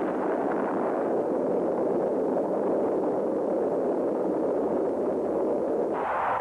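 A steady rushing roar with no distinct tones. Near the end it changes abruptly to a brighter, higher hiss.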